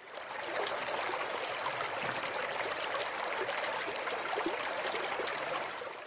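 Running water of a stream, a steady splashing rush that fades in at the start and fades out at the end.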